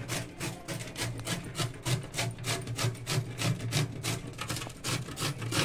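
Peeled raw green mango being grated on a metal hand grater, with quick, even rasping strokes at about three a second.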